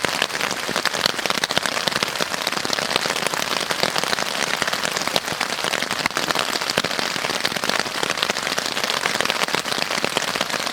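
Heavy rain falling on a tarp shelter overhead: a steady, dense hiss full of sharp individual drop taps.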